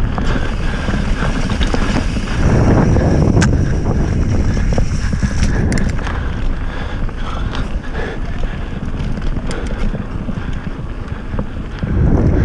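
Wind buffeting the microphone of a camera on a moving mountain bike, with a steady rumble of tyres rolling over a dirt and gravel trail and scattered small clicks and rattles. The rumble grows louder about two seconds in and again near the end.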